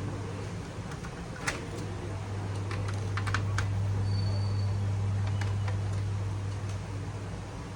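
Scattered small clicks and taps of a screwdriver working screws out of a laptop's plastic chassis, over a steady low hum.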